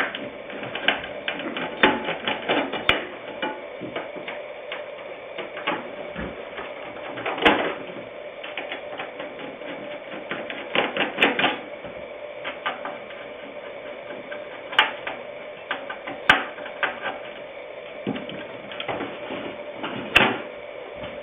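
Irregular clicking and tapping of small metal screws being undone with a screwdriver and a computer's back cover being handled, with a few louder knocks, over a steady hum.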